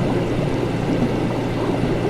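Steady laboratory ambience: a continuous, dense bubbling of liquid with a low hum underneath, unchanging throughout.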